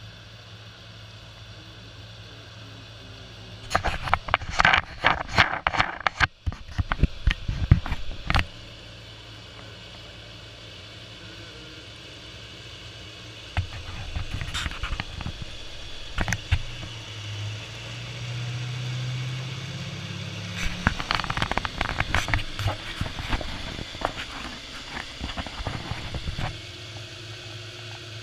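Railroad ballast regulator working on the track: a steady diesel drone with two long spells of crackling, rattling clatter of ballast stones, the first about four seconds in and the second from about 14 s to 26 s. The engine note rises for a few seconds in the middle of the second spell.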